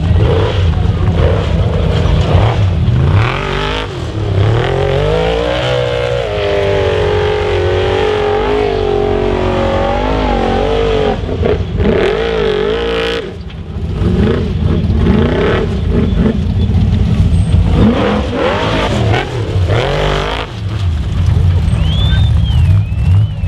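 Formula Offroad hill-climb buggy's engine revving hard and unevenly on a steep sand slope as the paddle tyres dig and spin, held at high revs for several seconds in the middle, dropping off briefly, then revved again in short bursts with the wheels spinning.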